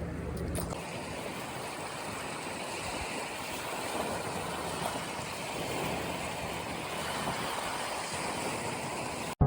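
Steady rush of moving water, even and without any pitch. It cuts off abruptly just before the end.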